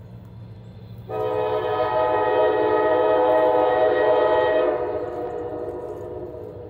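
Freight locomotive's multi-chime air horn sounding one long blast that starts abruptly about a second in, holds for about three and a half seconds, then dies away.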